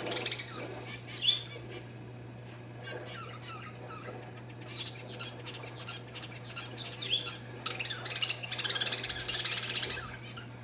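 Caged parakeets and zebra finches chirping in short scattered calls, with one sharp chirp about a second in and a longer run of rapid chattering near the end. A steady low hum sits underneath.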